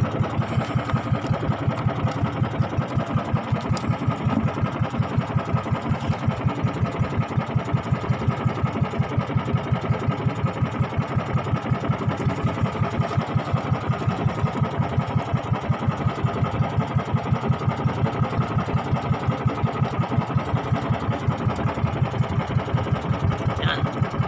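Small engine running steadily at an even speed, with a rapid, regular chugging beat.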